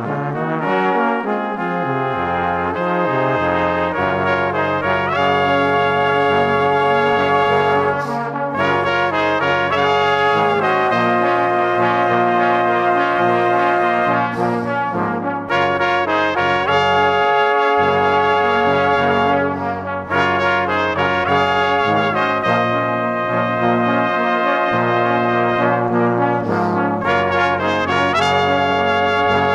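Background music led by brass instruments, playing held chords that change every second or two.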